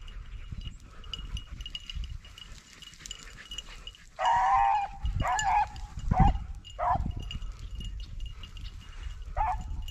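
Rabbit-hunting hounds baying while they run a rabbit on its scent. One long drawn-out bay comes about four seconds in, then a few shorter barks, and one more near the end.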